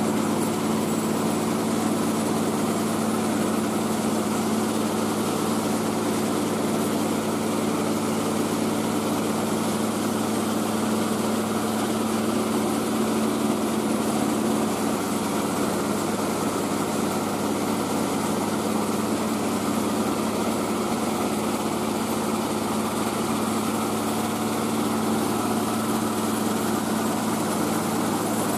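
Mobile rice-milling machine running steadily, its engine and milling machinery giving an even, unchanging drone.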